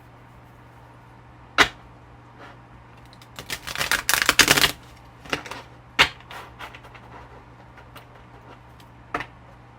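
Tarot cards being handled and shuffled: a few sharp single taps and a dense run of rapid clicks lasting about a second and a half, from about three and a half seconds in.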